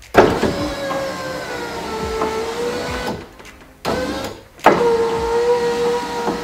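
Fiat Punto 199 electric window motor driving the freshly replaced window regulator: a steady whine as the glass runs down for about three seconds, a pause, then the whine again as it runs back up, each run starting with a click. The new regulator is working.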